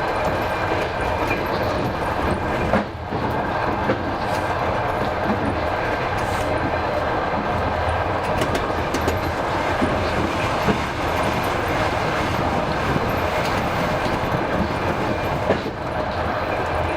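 Russian passenger train running: a steady rumble of wheels on the track, with a few sharp knocks from the rails.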